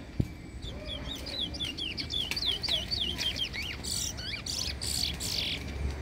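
Chestnut-bellied seed finch (towa-towa) singing: a quick run of sharp, down-slurred whistled notes for about three seconds, followed by a few short hissy noises.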